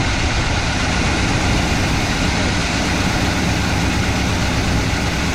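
Wrecker truck's engine idling steadily after a new ignition control module, which the owner thinks has a miss.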